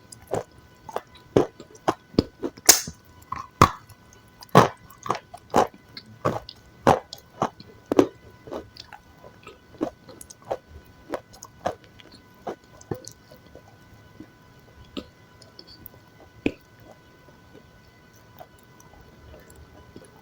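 Close-miked chewing of crunchy food: a run of crisp bites and crunches, about two a second at first, growing sparser and softer in the last third.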